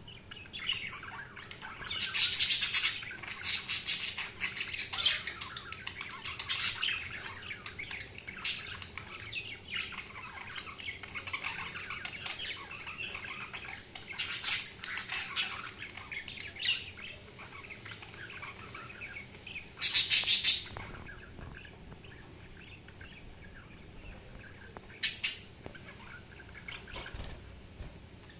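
Budgerigars chirping and warbling without pause, with several louder bursts of calls, the loudest about two-thirds of the way through.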